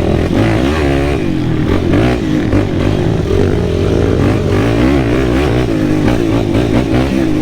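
Sport quad's single-cylinder four-stroke engine running under way on the trail, its revs rising and falling every second or so as the rider works the throttle.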